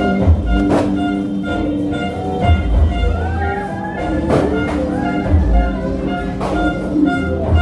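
Music played loud through a speaker and subwoofer on a sound check, with heavy, repeated bass pulses and sharp drum hits.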